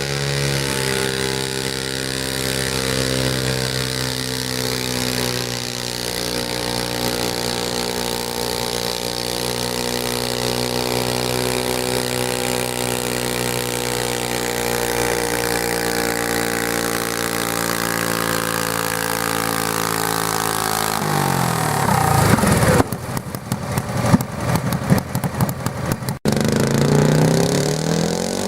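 Garden tractor engine running hard and steady at high revs under load. About 21 seconds in its pitch drops as it bogs down, then for a few seconds the sound turns choppy and uneven. Near the end the engine revs back up.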